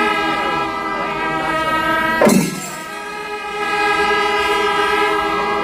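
Chenda melam temple-festival ensemble: wind instruments hold long steady horn notes, with a sharp loud hit about two seconds in.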